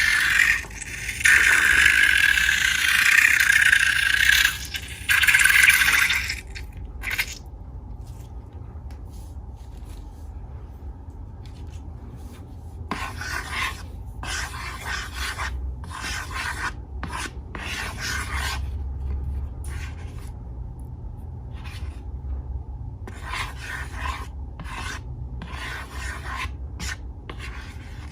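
A loud hissing rush with a brief break about a second in, stopping about six seconds in. It is followed by a run of short, irregular rubbing and scraping strokes.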